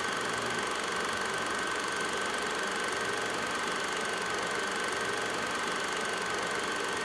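Reel film projector running steadily: a continuous mechanical running noise with a constant high tone that does not change.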